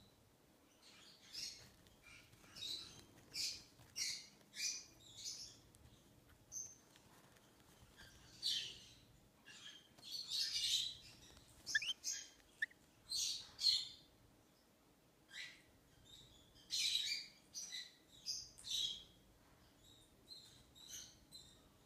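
Baby peach-faced lovebird chick chirping: short, high chirps in quick clusters, separated by pauses of a second or two.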